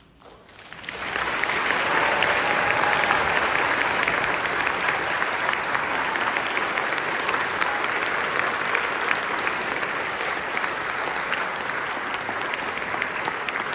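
Audience applauding, swelling up about a second in and then holding steady.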